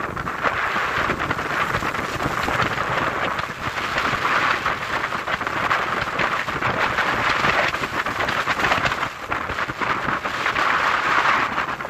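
Ocean surf breaking and washing up a pebble beach: a dense rushing hiss that swells and eases as the waves come in.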